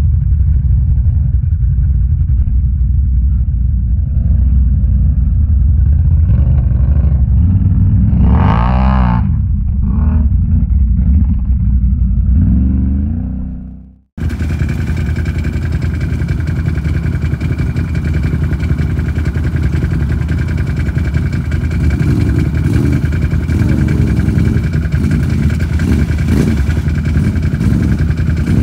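ATV engine running in the mud, with one rise and fall in pitch about eight seconds in. The sound fades out and cuts about halfway, then a steady engine idle continues.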